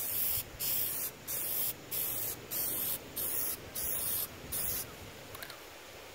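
Aerosol can of Plasti Dip rubber coating spraying in short bursts, about eight quick hissing sprays less than half a second each at a steady pace. The spraying stops about five seconds in.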